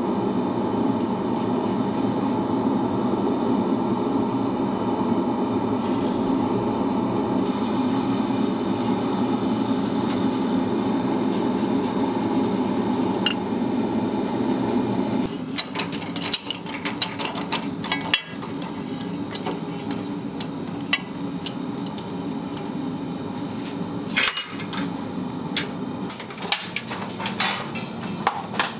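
A steady mechanical drone for about the first fifteen seconds, cutting off suddenly. After it come scattered metallic clinks and knocks of a steel lawnmower blade being handled and set in a bench vise.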